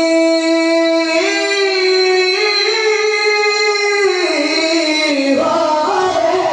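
A singer holding long, steady notes of a sung Urdu devotional verse. The pitch steps up twice, then falls into quick ornamented turns near the end.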